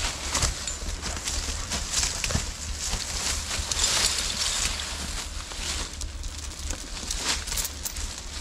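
Footsteps rustling and crunching through thick dry fallen leaves, with scattered sharp cracks of twigs underfoot.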